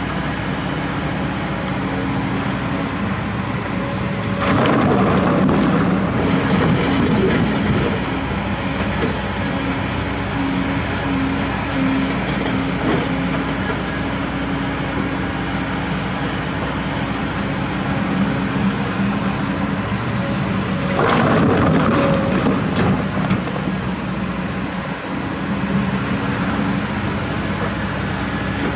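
Kobelco SK200 hydraulic excavator's diesel engine running steadily, with two louder, rougher stretches, about five seconds in and again past twenty seconds, as the bucket digs through rocks and water in the riverbed; scattered knocks of stone between.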